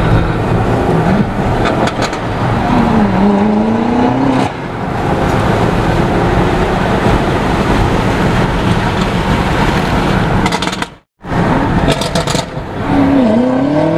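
BMW M8 Competition's twin-turbo V8 through an FI aftermarket exhaust, pulling ahead of a following car, its pitch rising and falling with the revs over a steady rush of road noise. The sound drops out for a moment about eleven seconds in.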